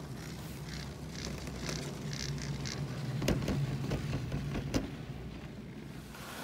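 Riding a chairlift: a steady low hum from the moving lift, with soft rustling and a few sharp clicks a little after the middle.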